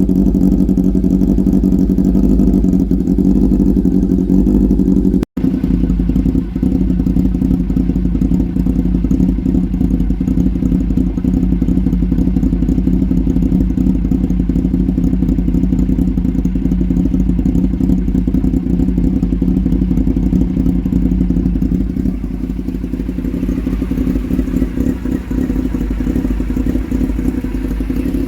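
Honda CB400 motorcycle engine running steadily at idle, close up. The sound drops out for an instant about five seconds in.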